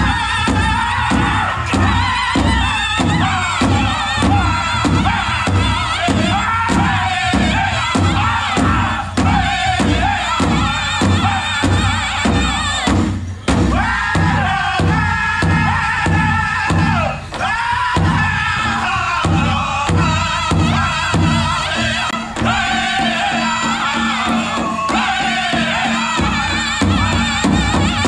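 Powwow drum group singing a chicken dance song together over a big drum beaten in unison at about two beats a second, the beat pausing briefly about thirteen seconds in.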